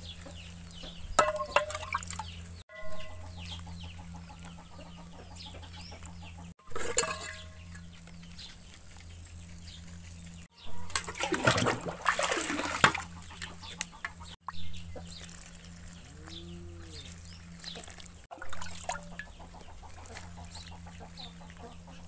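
Hens clucking on and off, with small birds chirping in the background and a low steady hum underneath. Midway, for about three seconds, water gushes and splashes from a pipe into a tank.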